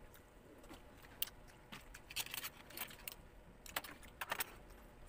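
Sharp cracks and clicks of cooked crab shell being broken apart by hand, coming in short clusters about two seconds in and again about four seconds in.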